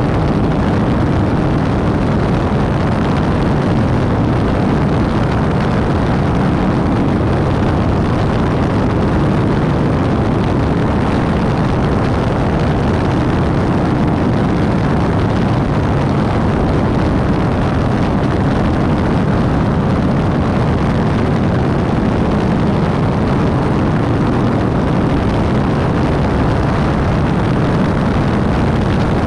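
Steady in-flight noise of a 1950 Beechcraft Bonanza B35: its single piston engine and propeller running at cruise, mixed with rushing airflow over a camera mounted outside under the wing. The sound does not change.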